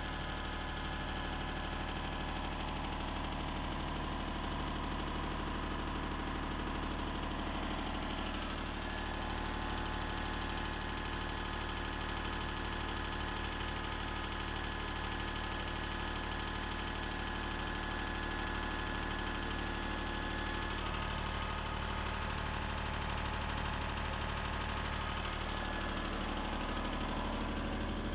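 Diesel generator-set engine running steadily at constant governed speed after a complete overhaul and injection-pump timing.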